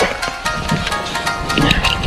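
Background music: held tones over a regular beat.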